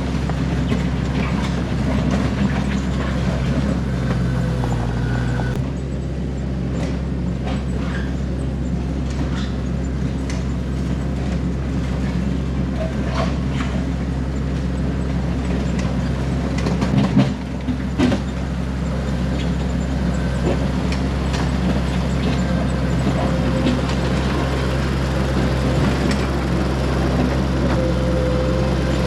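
Mini skid steer engine running steadily, with scattered clicks and knocks and a brief louder clatter about seventeen seconds in.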